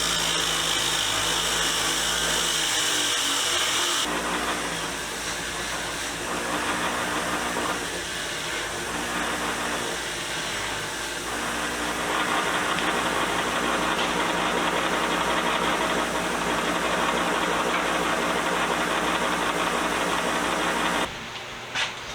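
Small rotary tool with a wire brush running steadily while cleaning a pipe wrench, its note and hiss changing a couple of times as it works. It cuts off suddenly near the end.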